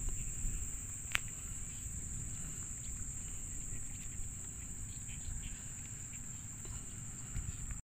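Insects chirring steadily in one high, unbroken tone over a low rumble, with a single sharp click about a second in.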